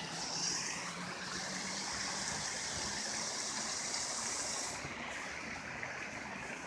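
Fountain water splashing steadily into its basin, growing a little softer about five seconds in.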